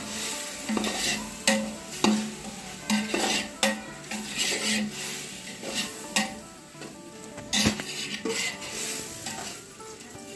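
Perforated metal ladle scraping and knocking against an aluminium pot at irregular strokes as onion and tomato masala is stirred, with the masala sizzling in hot oil.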